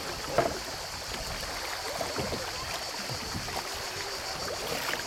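Shallow river water rushing and trickling steadily around a canoe, with a few small splashes scattered through, the clearest about half a second in.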